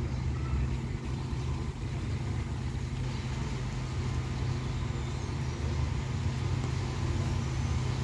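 Strong wind blowing through leafy trees, rustling the foliage, over a steady low rumble.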